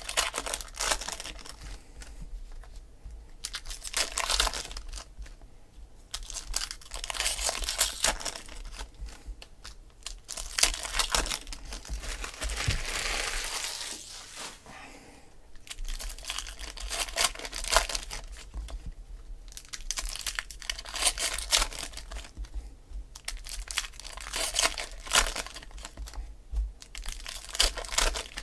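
Foil trading-card pack wrappers crinkling and tearing as packs are opened by hand, in bursts every few seconds, with a longer stretch of tearing about halfway through.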